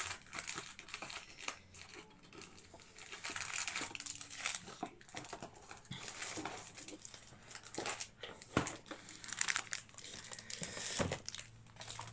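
Wrapping on a small gift package crinkling and rustling in irregular bursts as it is unwrapped by hand, with a few sharp clicks.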